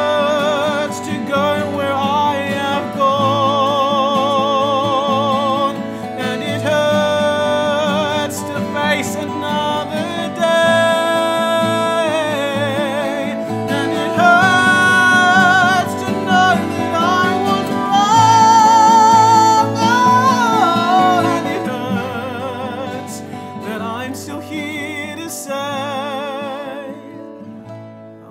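A song passage: a man's voice holding long wordless notes with wide vibrato over instrumental accompaniment. It is loudest about halfway through and fades away near the end.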